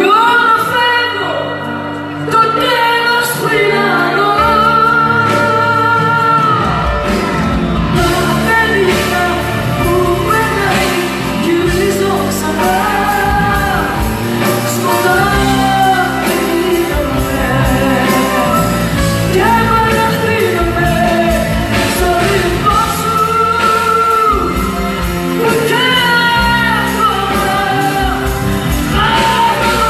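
A woman singing a song live with a band through a PA system, her held notes carrying a wide vibrato. The accompaniment is sparse for the first couple of seconds, then the full band comes in, with drums and cymbals joining a few seconds later.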